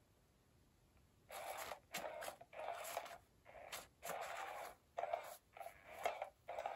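Scraping rustle of an electronic cat toy's wand darting about under its nylon cover, in a string of irregular spurts starting about a second in.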